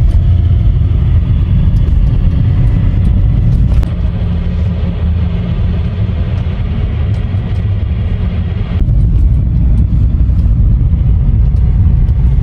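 Audi A6 Avant B5 with the 2.5 TDI V6 turbodiesel on the move, heard from inside the cabin: a loud, steady low rumble of engine and road noise. The sound changes abruptly about four seconds in and again about nine seconds in.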